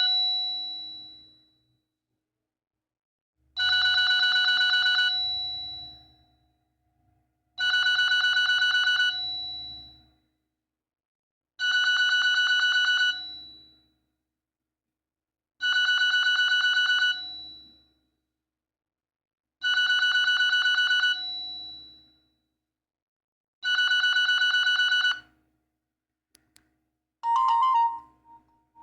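Nokia 8210 4G playing a default ringtone through its loudspeaker: a fluttering electronic ring, about a second and a half long, repeated six times at about four-second intervals like an old telephone bell. Near the end a different ringtone starts.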